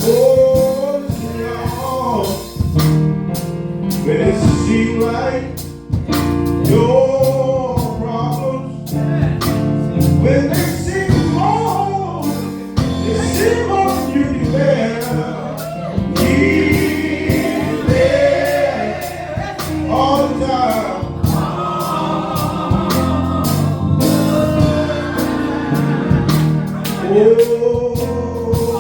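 Live gospel music: drawn-out, melismatic singing with backing voices over a band with bass and drums keeping a steady beat.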